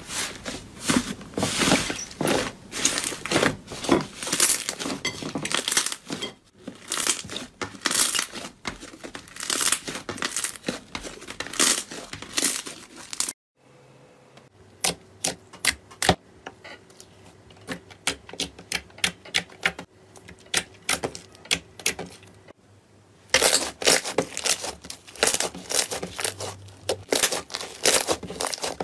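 Slime being pressed and squeezed by hands, crackling and popping densely. About halfway through it gives way to a quieter run of sharp separate clicks and pops from a clear red slime, then dense crackling returns as pink slime is squeezed in the fists.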